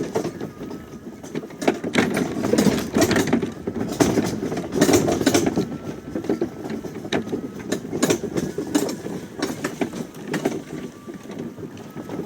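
Greenworks electric riding lawnmower driving over rough, mucky ground: a run of irregular clattering knocks and rattles over a faint steady motor whine.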